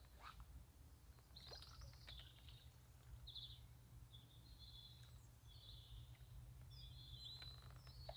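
Faint birdsong: scattered short, high chirps and a few quick trills over a low, steady background hum.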